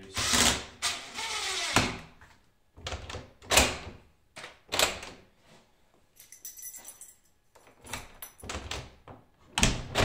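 A DeWalt 18V cordless drill briefly drives the last screw into a new uPVC door handle. It is followed by a series of separate clunks and clicks as the new lever handle is worked and the door latch operates, with the loudest clunk just before the end.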